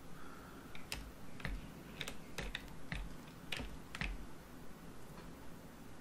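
Faint, irregular clicks of a computer keyboard and mouse, about a dozen spread unevenly over several seconds.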